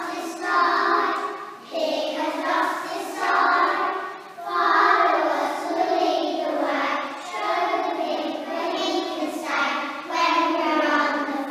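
A group of young children singing a song together, in phrases of a second or two with short breaks between them.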